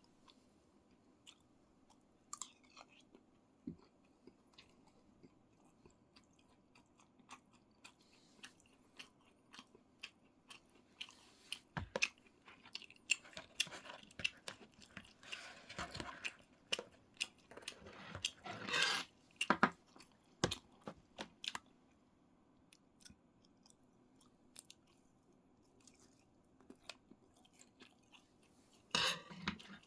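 Close-up chewing and mouth sounds of someone eating, with many short sharp clicks, busiest through the middle and with a loud burst near the end.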